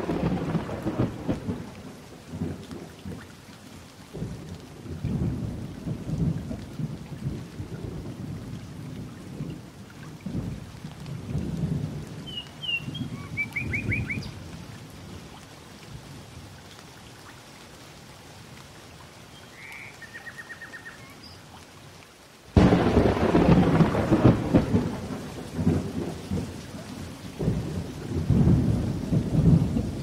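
Thunderstorm: thunder rumbling over steady rain, with a sudden much louder roll of thunder about three quarters of the way through. A few short, high trilled chirps come and go above it.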